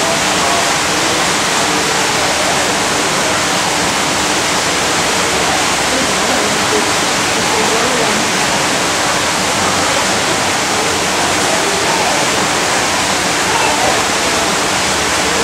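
Steady, even rushing noise with faint voices in the background.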